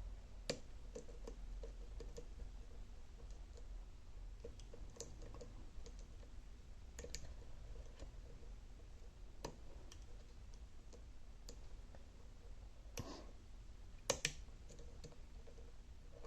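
Small irregular clicks and ticks from an Alba dimple lock being picked, the pick working the pins, with a few sharper clicks about half a second in and near the end.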